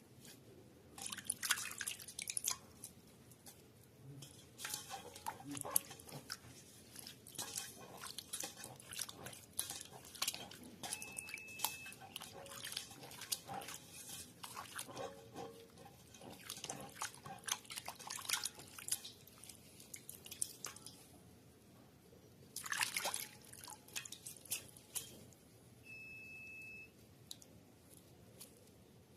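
Water dripping and splashing, with many light clicks and knocks from handling. About three-quarters of the way through there is a short burst of running water. Two short steady beeps sound, one about a third of the way in and one near the end.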